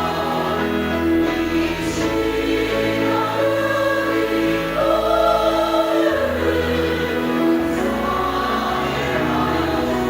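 Church choir singing a hymn in sustained, slow-moving chords, with low held bass notes beneath.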